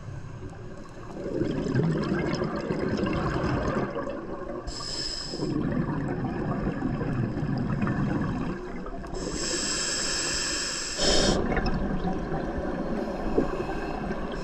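Scuba diver breathing through a regulator underwater: two high hissing inhalations through the demand valve, about five and ten seconds in, each followed by a few seconds of low bubbling as the exhaled air vents from the regulator.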